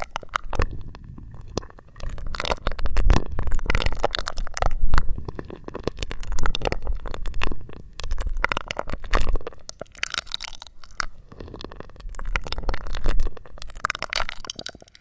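Sucking and slurping through a drinking straw right at the microphones: irregular bursts of wet clicks and crackles over a low rumble.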